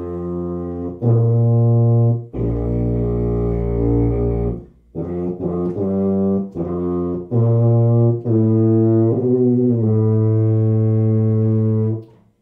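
Tuba playing a short phrase of notes, a couple held and a quicker run, ending on a long note, with a deliberately poor, closed-off tone. The tone comes from a tight, locked jaw, teeth nearly closed, the tongue arched high and the lips pushed into the mouthpiece, the common faults behind a student's pinched tuba sound.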